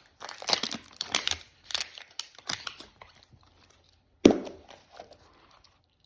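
Plastic wrapping crinkling and tearing in quick bursts as a Mini Brands capsule is unwrapped, then one sharp knock about four seconds in.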